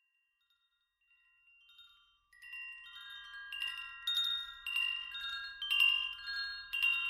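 Wind chimes ringing: a few faint tones at first, then from about two seconds in many overlapping ringing tones struck in quick succession, growing fuller.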